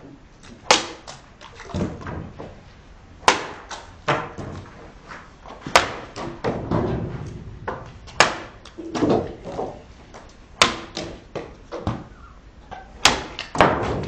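A small hand-forged knife chopping into an upright sugarcane stalk. There are about six hard chops, one every two and a half seconds or so, each followed by lighter knocks and the crunch of the cane splitting.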